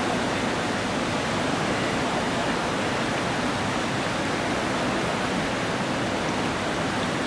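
River water pouring over a weir and rushing downstream as white water: a steady, even rush of water noise.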